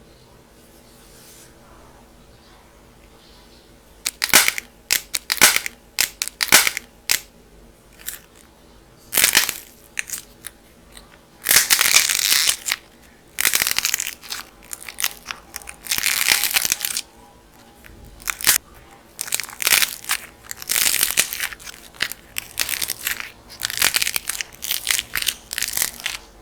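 Dried clay being cracked and crumbled. After a quiet start, a long series of sharp crackling, crunching bursts begins about four seconds in: some are single cracks, others last about a second.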